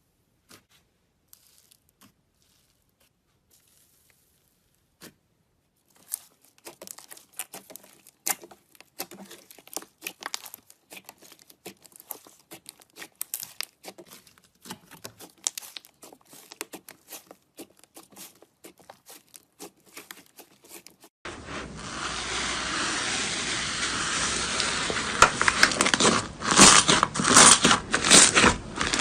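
Slime being handled and squeezed, crackling and popping. A few isolated clicks open it, dense crackling starts about six seconds in, and a louder, thicker crackle with sharp pops takes over near the end.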